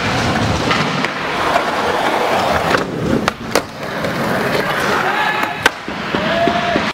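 Skateboard wheels rolling on a smooth floor and wooden ramp, with sharp clacks of the board about three and a half seconds in and again near six seconds, as it pops and lands.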